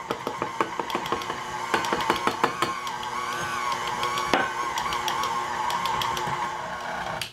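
KitchenAid tilt-head stand mixer running, its motor giving a steady whine while the beater works a stiff, heavily floured sugar-cookie dough that knocks against the bowl many times a second. The mixer stops near the end.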